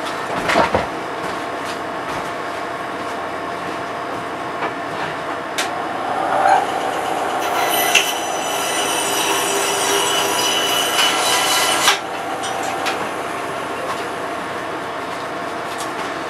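Bandsaw cutting off the protruding end of the wooden wedge and axe handle: a high, ringing whine for about four seconds that stops abruptly, over a steady background hum, with a single knock near the start.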